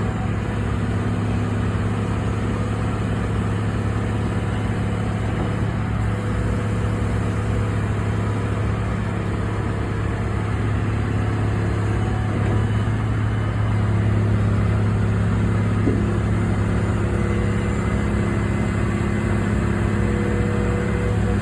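Diesel engine of a Caterpillar 345BL crawler excavator running steadily, a little louder from about two-thirds of the way through.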